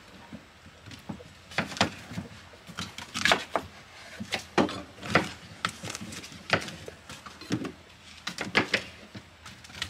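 Knives cutting apples on plastic cutting boards: irregular sharp knocks of the blades striking the boards, about two a second.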